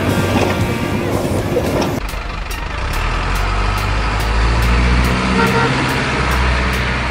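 Background music, then from about two seconds in a heavy diesel truck engine sound running with a deep, steady drone.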